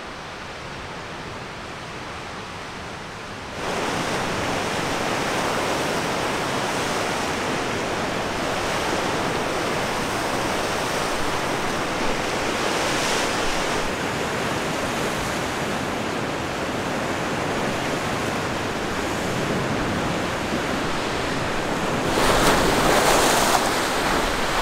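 Lake Superior waves washing and breaking against a rocky shoreline, a steady rush of surf. It is softer for the first few seconds, louder after about three and a half seconds, with a bigger surge near the end.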